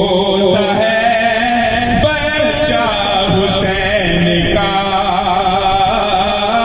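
A man chanting a manqabat, an Urdu devotional poem, into a microphone, drawing out long, wavering melodic notes with only short breaks.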